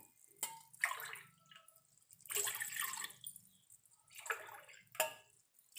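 Water poured from a glass into a stainless-steel pot, in three splashing pours about a second each, with a couple of short splashes between them.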